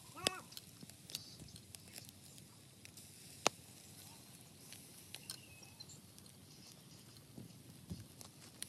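A long metal knife tapping and scraping on the wire grate of a charcoal grill while field rats are turned, giving scattered faint clicks and ticks. There is a short squeak a fraction of a second in, and a sharper click about three and a half seconds in.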